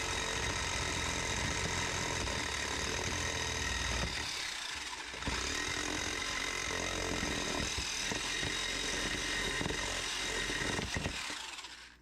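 A small power tool running steadily with a high whine as it cuts into the thin sheet metal of an old lantern to enlarge a hole. It eases off briefly about four seconds in, then picks up again and stops just before the end.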